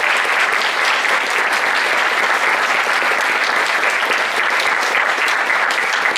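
Large audience applauding steadily, a dense wash of clapping.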